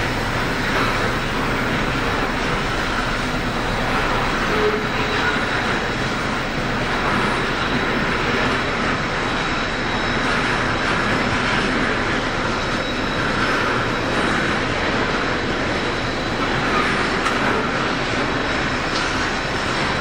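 Long line of loaded coal hopper wagons rolling steadily past, their wheels running on the rails, with a faint steady high-pitched whine.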